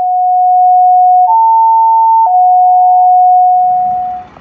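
Fire dispatch radio alert tones: steady pure tones that step between two pitches. A low tone is held, a higher tone sounds for about a second, then the low tone returns and fades out near the end.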